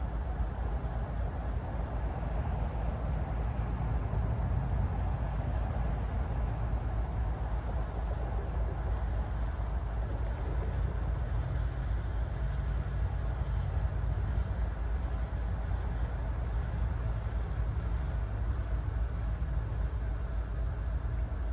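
Steady low rumble of a heavy vehicle, holding an even level without clear starts or stops.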